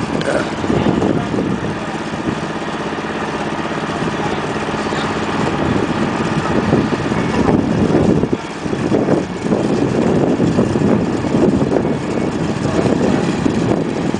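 Diesel engine of a wheel loader running, its level swelling and dipping.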